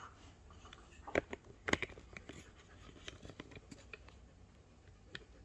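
Scattered light clicks and taps from a husky nosing at a wooden treat puzzle toy, with two sharper knocks about a second and nearly two seconds in.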